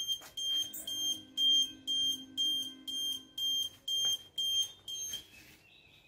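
12 V buzzer of a homemade Arduino vibration-sensor alarm sounding: a high, piercing beep repeating about twice a second, stopping a little after five seconds in.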